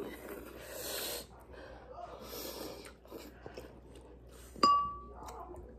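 Hissing, snorting breaths and slurping as two people eat fiery-hot instant noodles, sucking in air against the burn. About three-quarters of the way through comes one short, high-pitched squeak.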